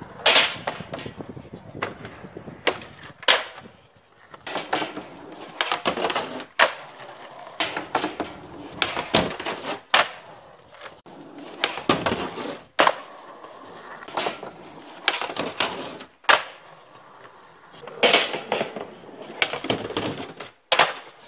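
Skateboard rolling on rough concrete, with repeated sharp cracks and clacks of the board popping, hitting and landing, and its trucks grinding on a wooden pallet ledge.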